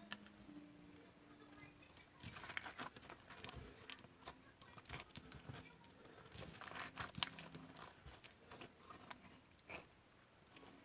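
Slime being squished and pressed by hand, giving faint, irregular clusters of small clicks and crackles.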